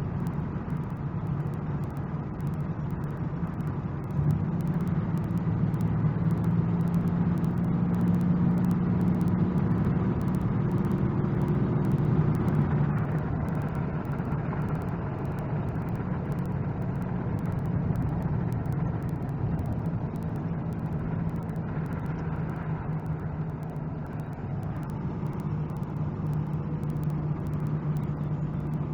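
Dodge Ram 3500's 5.9-litre Cummins 24-valve diesel running while towing a heavy load. The engine note climbs and gets louder from about four seconds in, drops back around twelve seconds in, then runs steady.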